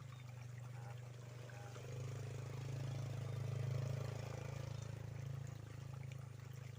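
A steady low engine hum that swells to its loudest about three to four seconds in, then eases off again.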